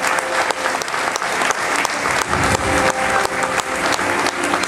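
Audience applauding, many hands clapping continuously at an even level.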